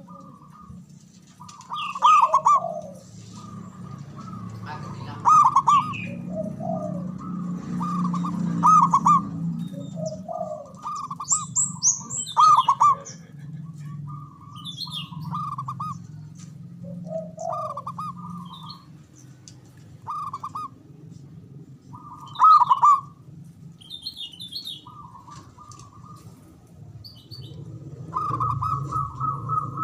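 Zebra dove (perkutut) cooing in repeated short trilled phrases every few seconds, with a longer phrase near the end. Higher, thinner chirps from other small birds come in between, over a steady low background rumble.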